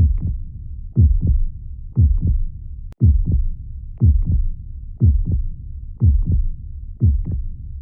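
Heartbeat: a steady lub-dub double thump about once a second (around 60 beats a minute) over a low rumbling background, with a brief click and gap about three seconds in.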